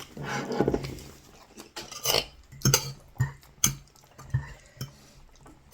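Cutlery clinking and scraping against plates, with sharp taps about every half second.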